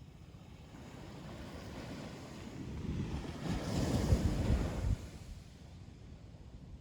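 Ocean waves breaking on a beach: the surf builds from about two seconds in, a wave crashes loudest around four seconds, and the sound falls away suddenly about five seconds in.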